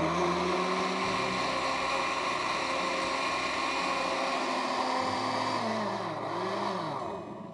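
Countertop electric blender running steadily, pureeing cooked mushroom soup in its jar; it runs down and stops near the end.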